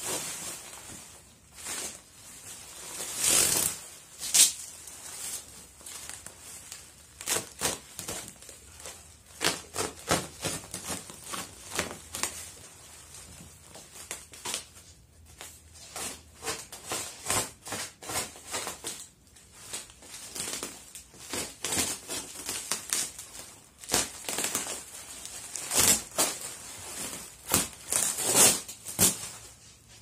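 Cardboard shipping box being cut and torn open and bubble wrap pulled off: irregular scraping, ripping and crinkling, with a run of sharp crackles near the end.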